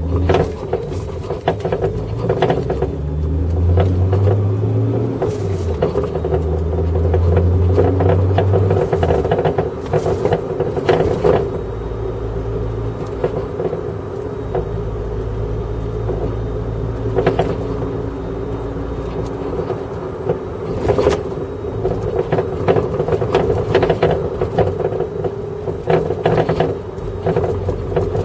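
Repeated knocks and clunks from the rear suspension of a Toyota JZX100 on Öhlins PCV coilovers, heard from inside the cabin over steady road and engine rumble. The knocking is the sign of a failed rear pillow-ball upper mount.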